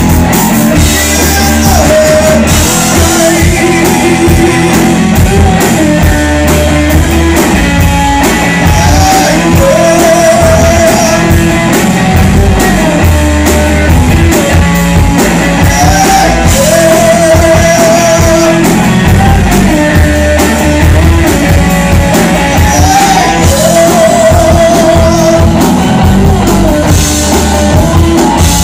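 Live rock band playing loud, electric guitars over a drum kit, with a melody line that comes back in repeating phrases every few seconds.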